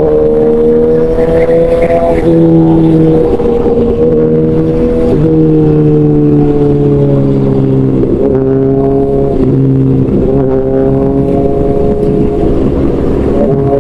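Motorcycle engine running under way, loud and steady, its pitch sliding slowly down with brief breaks every few seconds.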